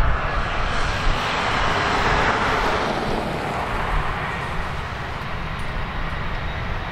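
Airbus A320-214 with CFM56-5B engines at approach power on short final. Its broad rushing jet noise swells to a peak two to three seconds in, then eases off, over a steady low rumble.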